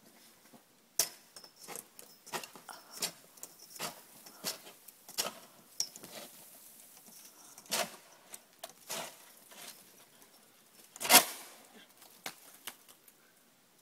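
A long-handled roof rake scraping and knocking against the snow-covered roof edge, in irregular sharp scrapes and clicks, with one longer, louder scrape about eleven seconds in.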